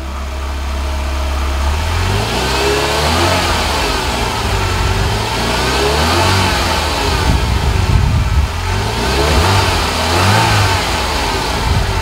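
Ferrari 328 GTS's 3.2-litre V8 engine revving again and again, its pitch climbing and falling in a series of rev blips that grow louder from about two seconds in.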